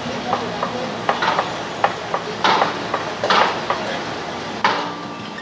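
Construction-site work on a concrete tower: irregular metal clanks and knocks, a few louder strikes ringing briefly, over a steady low machine hum.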